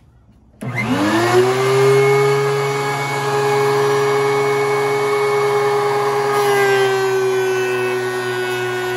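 DeWalt DW735 thickness planer switched on about half a second in: its motor and three-knife cutterhead spin up with a rising whine over about a second, then run steady at full speed. About six and a half seconds in the pitch drops slightly as a board feeds into the cutterhead and the machine takes the load of the cut.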